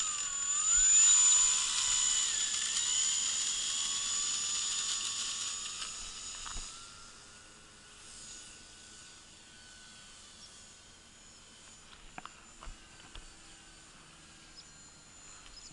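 Electric brushless motor and propeller of an Art-Tech Texan T-6 RC plane whining at high throttle on its takeoff run. The whine is loud at first and fades over the first seven seconds or so as the plane rolls away and climbs out, leaving it faint.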